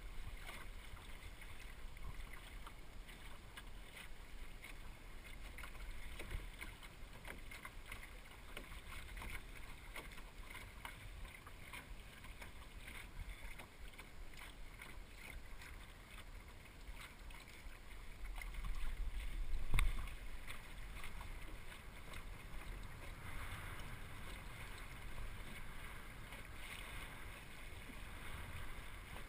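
Water splashing and lapping against the hull of a small El Toro sailing dinghy under way, with light wind noise and scattered small clicks. About two-thirds of the way through there is a louder low rumble that ends in a knock.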